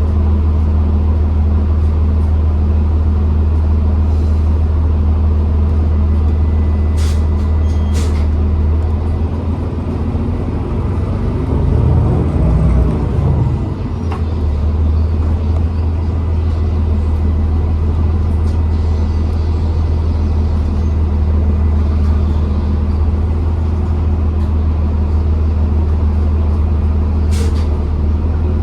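2012 New Flyer XDE40 diesel-electric hybrid bus running, a steady low drone with a faint steady whine over it. The drone shifts and swells about a third of the way in, then settles, and a few short sharp sounds come through, twice near the start and once near the end.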